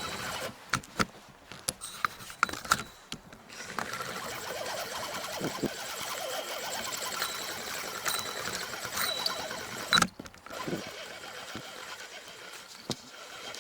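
A spinning reel being cranked to bring in a hooked crucian carp: clicks and knocks in the first few seconds, then a steady whirr of the reel for about six seconds, and a sharp click about ten seconds in.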